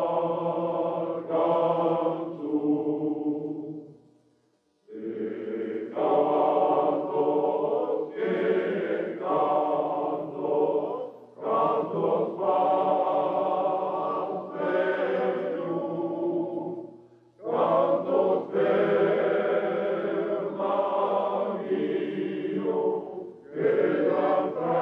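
Choir singing a traditional Pyrenean song, phrase after phrase, with a short break about four seconds in and brief pauses between later phrases.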